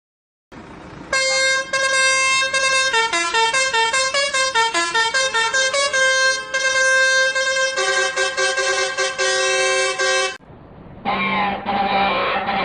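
A car horn sound plays a tune of pitched honks, with a run of quick changing notes in the middle, and stops about ten seconds in. A duller, altered version of the horn tune starts about a second later.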